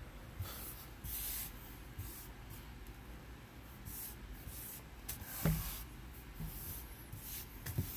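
Fingers sweeping dirt, sand and pet hair across a laminate floor: short, soft scratchy swishes that come and go, with a light knock about five seconds in.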